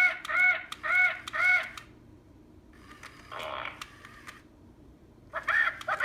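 Squawkers McCaw robot parrot toy playing bird calls through its speaker: four short, arched calls about half a second apart, a rougher, noisier squawk about halfway through, then a fast run of chattering calls near the end.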